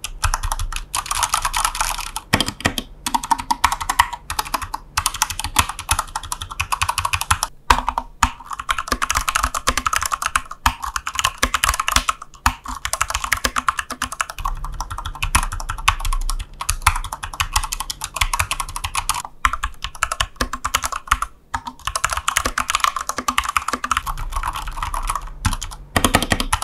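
Fast typing on a Corsair K65 Mini RGB 60% mechanical keyboard fitted with Corsair PBT Double Shot Pro keycaps: dense, rapid key clacks with a few short pauses.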